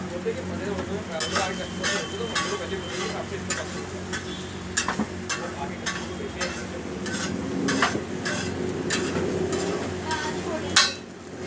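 Metal spatula tapping and scraping on a hot iron dosa griddle: a run of sharp clicks, about two a second, over a steady sizzle. The sharpest click comes near the end.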